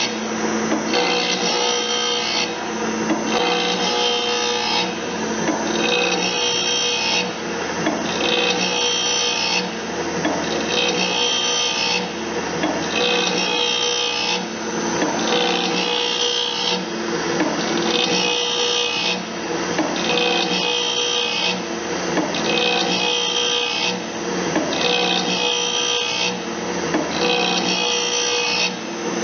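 Automatic bandsaw blade sharpener's abrasive wheel grinding the blade teeth. A rasping metal grind with a ringing edge comes in regular strokes about every second and a half, with a short break between strokes as the blade steps from tooth to tooth.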